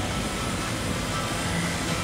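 Steady engine and road noise of a moving vehicle.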